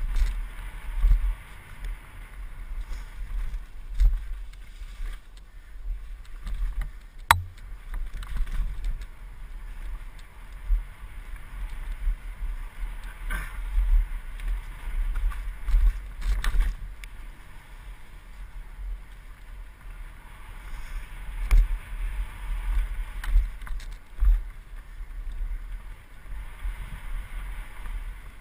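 Wind buffeting a helmet-mounted action camera while a mountain bike descends rough dirt singletrack, with the uneven low rumble and thumps of the tyres and suspension over roots and rocks. A sharp clack, likely the chain or frame hitting something, stands out about seven seconds in.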